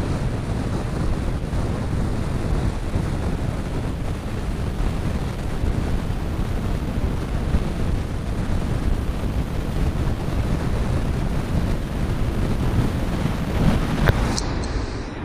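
Wind buffeting the microphone over breaking ocean surf: a steady rumble, heaviest at the low end.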